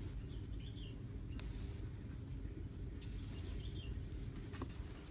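Outdoor ambience: a steady low rumble with a few faint bird chirps and an occasional small click.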